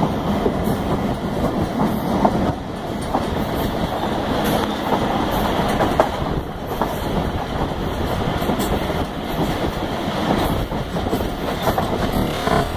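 Passenger train running along the track, heard from an open carriage window: a steady rumble with irregular clatter and knocks from the wheels on the rails.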